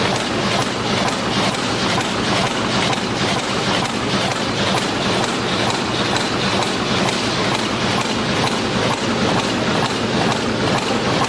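Bottle-making and packaging machine running with a steady, dense rapid clatter of many small mechanical ticks.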